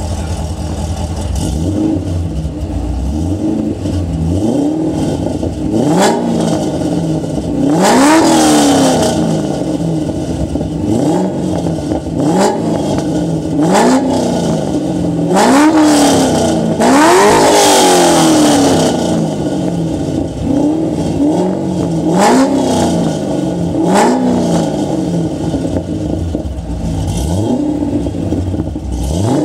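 Chevrolet Corvette C6's 6.0-litre LS2 V8 blipped repeatedly from idle while parked: about a dozen quick revs, each climbing and falling back to idle. Two of them, about eight and seventeen seconds in, are held longer and go higher.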